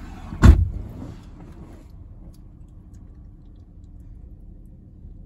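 A loud thump about half a second in, then the low steady hum of an idling vehicle heard from inside its cabin.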